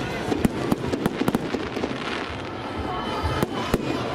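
Fireworks display: shells bursting with about a dozen sharp bangs at uneven intervals, over a steady background din.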